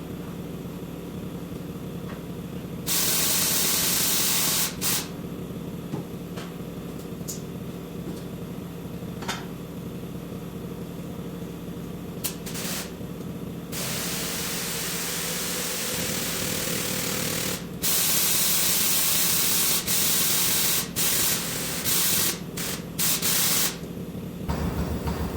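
Compressed air hissing loudly in repeated bursts, some short and some several seconds long, over a steady machine hum, during tractor tire work.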